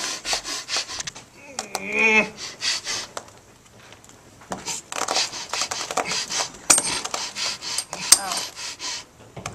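Clothing rustling as hands rub and pat along trousers and shirt, in a quick run of short scuffs, with a brief voice sound about two seconds in. There are a couple of sharp clicks in the second half.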